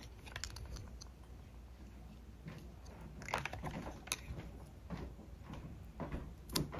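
A few faint, scattered light clicks and taps of paintbrushes being handled against a plastic palette tray.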